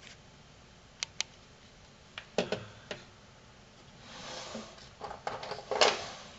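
Scattered small clicks and taps of fingers and a tool working inside a cassette deck mechanism, with a soft scraping rustle about four seconds in and a quick cluster of clicks near the end, the last of them the loudest.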